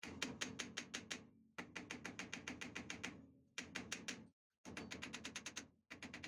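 Rapid light hammer blows, about seven a second, on the steel shaft of a bent screwdriver laid on a bench vise's anvil, straightening it. The tapping comes in several short runs that start and stop abruptly.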